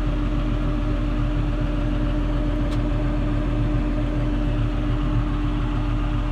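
John Deere 7130 tractor's six-cylinder diesel running steadily while pulling a 15-foot Land Pride batwing rotary cutter through pasture: an even engine drone with a constant humming tone.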